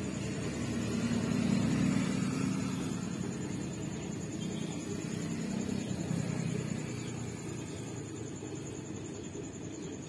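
A steady low rumble with a thin, steady high whine above it. The rumble swells between about one and three seconds in, then eases off.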